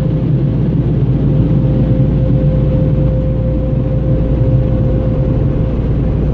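Car wash blade dryers blowing hard, a steady rush of air with a constant whine, heard from inside the van's cabin as it creeps through the drying stage.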